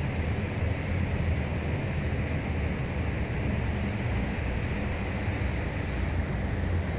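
Steady low rumbling background noise with a faint, constant high whine; no engine or other distinct event.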